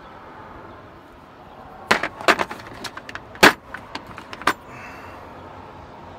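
Chrome sockets and a socket extension clinking against each other and the plastic tool case as they are handled. A cluster of sharp clicks and clacks runs for about two and a half seconds, with the loudest single clack near the middle.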